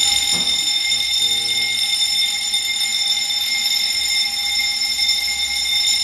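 Fire alarm sounding a continuous high-pitched electronic tone, set off by test smoke applied to a ceiling smoke detector during a system test; it starts suddenly and holds steady.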